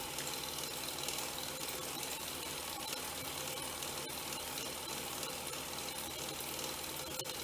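Doll 320/5 live-steam vertical toy steam engine running steadily, belt-driving a model dredger: a fast, even mechanical clatter over a constant hiss.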